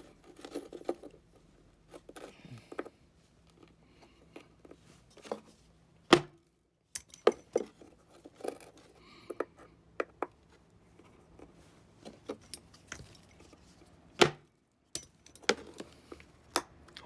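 Hand tools clicking, tapping and scraping on a small Harley-Davidson circuit breaker as it is taken apart, in irregular sharp clicks with two louder knocks, about six seconds in and near the end.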